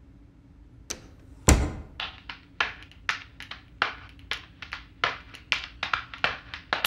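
A sharp click, then a heavy thud about a second and a half in, followed by a quick run of sharp clicks and taps at about four a second.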